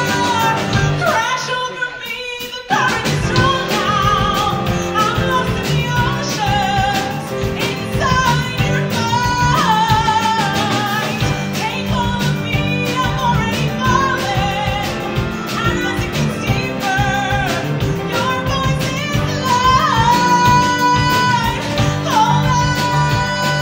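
A woman singing a musical-theatre song with vibrato over a live band of piano, guitar, bass, drums, violins and cello. The band thins out briefly about two seconds in, then comes back in with a sudden full hit.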